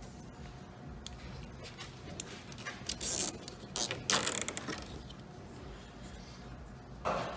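Nylon cable ties being pulled tight around a wiring harness, giving short ratcheting zips: a couple of bursts about three and four seconds in, and one more near the end.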